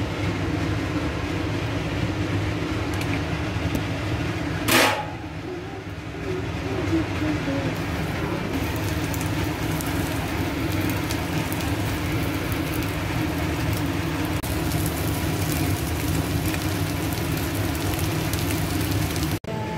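Beaten egg with chopped string beans frying in hot oil in a wok, sizzling and crackling over a steady low rumble. A sudden loud hiss comes about five seconds in as the egg goes into the oil, and the crackling grows denser from about eight seconds on.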